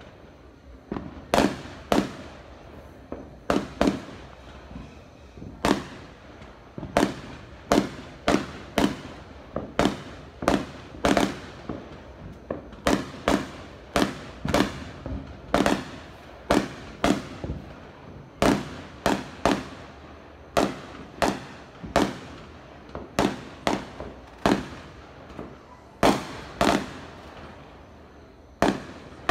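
Fireworks going off in the distance: an irregular string of sharp bangs and pops, a little over one a second, each trailing off in a short echo.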